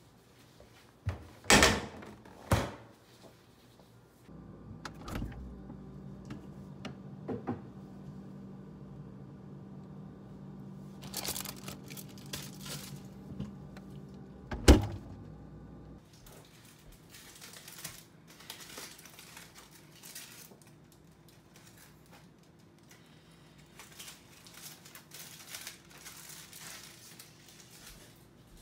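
Kitchen handling sounds at an open refrigerator: a few sharp knocks near the start, a steady low hum through the middle, one loud thump about halfway through, then rustling and light clattering.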